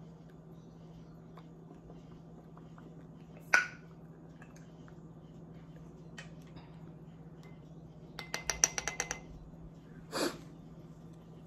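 Handling of a food container and utensil: a single sharp click about three and a half seconds in, then a quick run of about ten small clicks near the end, followed by a short rustle. A steady low hum runs underneath.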